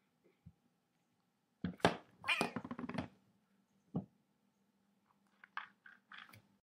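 Domestic cat meowing once, about two seconds in, amid sharp knocks from a plastic food container being pawed. A single thump follows about a second later, then a few light clicks and scrapes on the container near the end.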